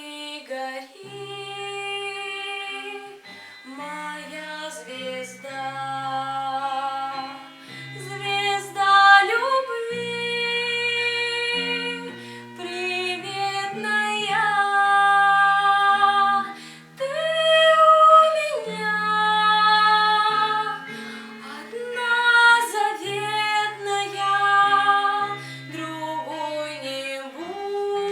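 A woman singing a slow Russian romance, holding long notes, over instrumental accompaniment.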